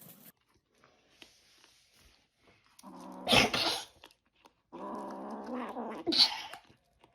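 A pet animal calling out twice: a short loud call about three seconds in, then a longer one after a brief pause.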